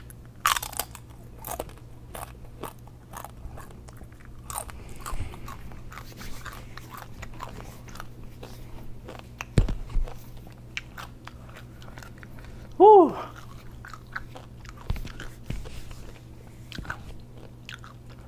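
Close-up chewing of a thick Paqui One Chip Challenge tortilla chip: a run of small, sharp crunches as the last piece is chewed down. A sharp knock comes about halfway through, and a short vocal noise from the eater about two-thirds of the way in.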